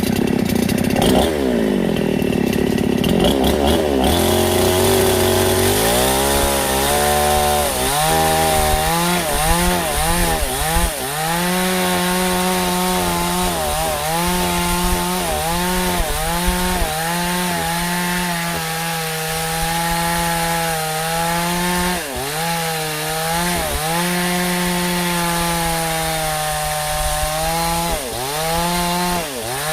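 Stihl chainsaw running at high revs and cutting wood. Its engine pitch dips again and again as the chain bites into the cut, then climbs back. The first few seconds are rougher and less steady.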